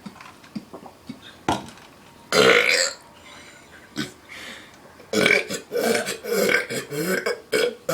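A person burping: one long, loud burp about two seconds in, then from about five seconds in a rapid string of short burps following one another several times a second.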